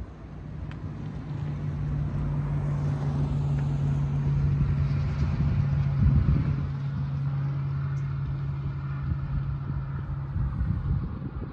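A vehicle engine running with a steady low hum. It grows louder toward the middle and fades a little near the end, over some wind rumble.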